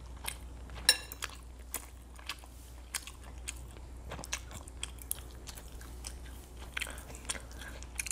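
Eating close to the microphone: chewing, with a fork clicking and scraping against a ceramic bowl. One sharper clink rings briefly about a second in.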